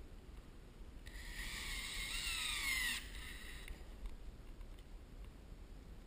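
Cordless drill driving a screw up into drywall ceiling. The motor whine falls in pitch as the screw bites, then stops abruptly about three seconds in.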